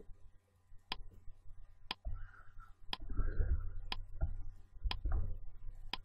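Countdown timer tick sound effect, a sharp tick once a second, seven ticks in all, over faint low room noise.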